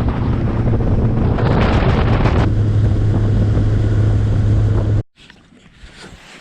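Boat's outboard motor running at speed with a steady low hum under heavy wind noise on the microphone; it cuts off abruptly about five seconds in, leaving a quiet outdoor background.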